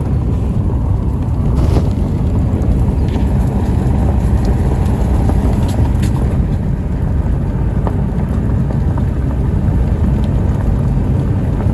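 High wind buffeting the microphone: a loud, steady low rumble, with a few faint ticks.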